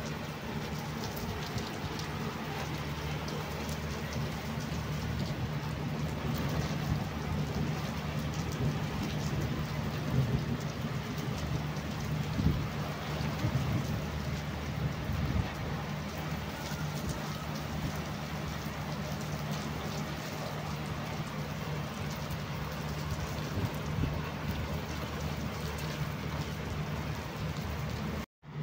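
Heavy rain pouring onto a wet flat concrete rooftop, a dense steady hiss of splashing drops with a steady low rumble beneath it. The sound cuts out for an instant near the end.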